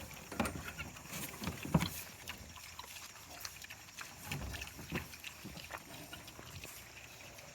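Piglets chomping on feed, a run of irregular short crunches and clicks, with guinea fowl calling in the background.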